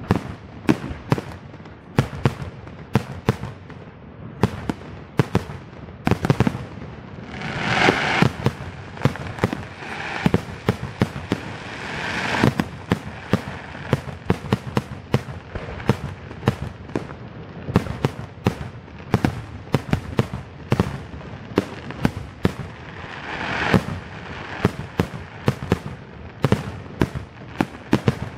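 Aerial fireworks shells bursting in quick succession, several bangs a second, with a few longer spells of crackling.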